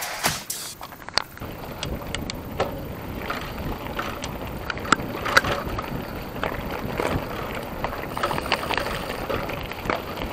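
Raft on a river: a steady wash of moving water with scattered knocks and clicks, and wind on the microphone.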